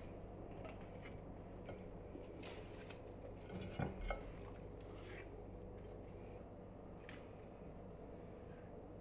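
Faint clinks and taps of metal kebab skewers and grilled food being set on ceramic plates, with two louder knocks a little under four seconds in, over a steady low hum.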